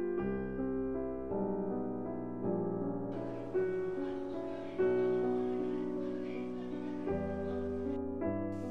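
Background piano music: slow, gentle notes and chords changing about once a second.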